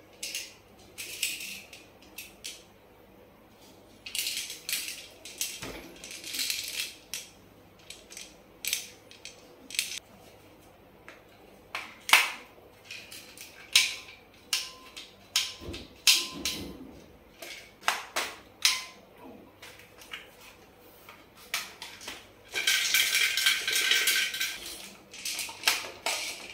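Plastic clicks, knocks and rattles of a toy AK-style BB rifle being handled and put together, its magazine and stock pieces fitted onto the body. Scattered single clicks, with two stretches of denser rattling, a few seconds in and near the end.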